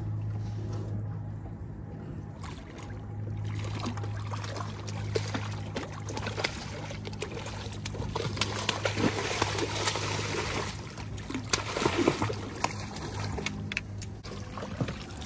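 A small blue catfish splashing at the water's surface as it is reeled in alongside the boat, the splashing starting a couple of seconds in and growing busiest in the second half. A steady low hum runs underneath and fades out about eleven seconds in.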